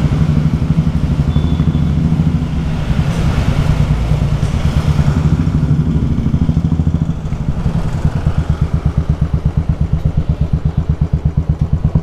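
Royal Enfield single-cylinder motorcycle engine running under way, heard from the rider's seat. In the second half its beat turns into a distinct, even, rapid thumping.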